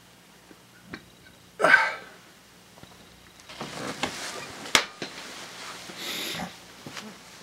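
One short, loud breath through the nose, then clothing and plastic rustling as a person gets up and handles a crinkly plastic sheet, with one sharp knock in the middle.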